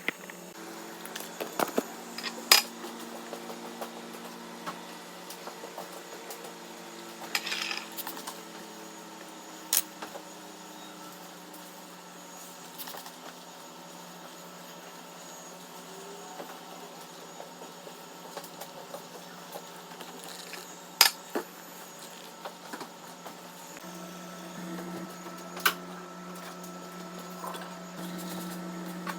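Scattered clinks and knocks of dishes and utensils being handled, a sharp click every few seconds, over a steady low hum.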